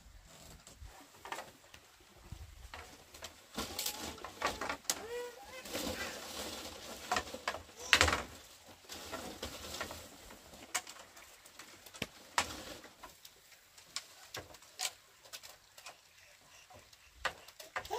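Bamboo poles knocking and clacking as they are handled, in irregular short knocks, with a louder knock about eight seconds in. Birds call now and then.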